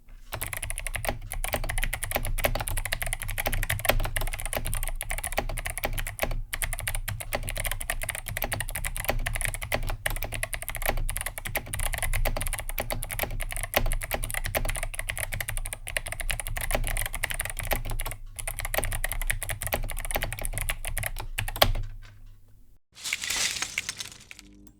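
Fast, continuous typing on a mechanical keyboard with clicky Kailh Box White v2 switches: a dense run of key clicks that stops about three seconds before the end. A short hiss-like burst follows near the end.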